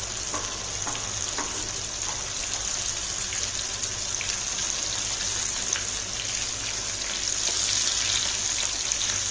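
Cornflour-coated sweet corn kernels deep-frying in a kadai of hot oil: a steady sizzling hiss with faint scattered crackles, growing a little louder near the end.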